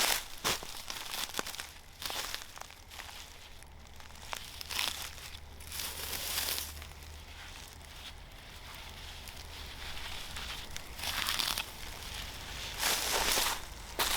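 Rustling and crinkling in irregular bursts, with a few sharp clicks.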